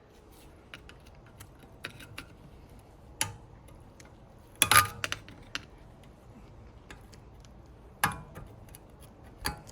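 Scattered light metal clinks and ticks of a screwdriver prying at the front brake caliper's anti-rattle spring clip, with sharper clinks about four and a half seconds in and again about eight seconds in.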